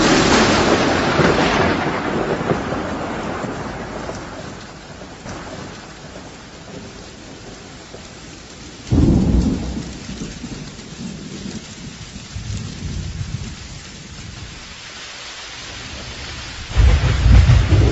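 Thunderstorm: steady rain with thunder. A loud clap at the start rolls away over several seconds, and deep rumbles break in about halfway through and again near the end.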